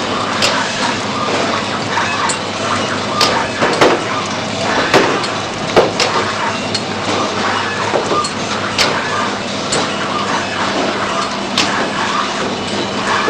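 Powder packing machine running, a steady mechanical hum and clatter with irregular sharp clicks and knocks from its moving parts.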